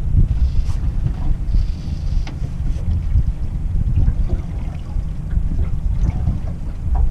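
Wind buffeting the microphone as an uneven low rumble, over the steady noise of a fishing boat moving slowly at trolling speed on open water.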